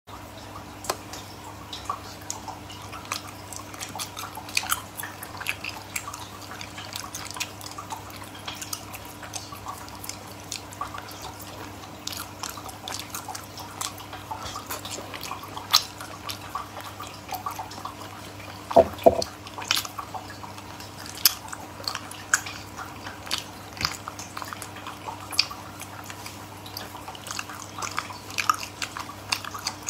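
Close-miked wet mouth sounds of eating spicy braised sea snails: a steady stream of small wet clicks and smacks from sucking and chewing the snail meat, with a louder wet burst about two-thirds of the way in.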